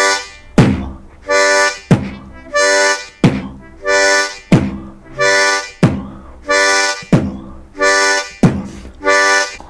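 Beatboxed kick drum, a hard lip-burst "p", alternating with a short chord on holes 1, 2 and 3 of a diatonic harmonica. It is a steady rhythm of about seven kick-and-chord pairs, one pair every 1.3 seconds. The harmonica is held just off the lips so the kick sounds under it.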